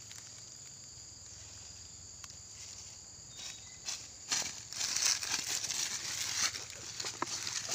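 Insects hum high and steady. From about four seconds in, footsteps crunch and rustle through dry fallen leaves.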